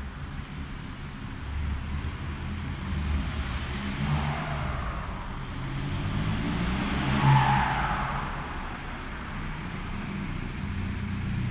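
VW Golf Mk4 1.9 TDI (ASZ) four-cylinder turbodiesel running through a straight-pipe exhaust, swelling louder twice, about four and seven seconds in, the second swell the loudest.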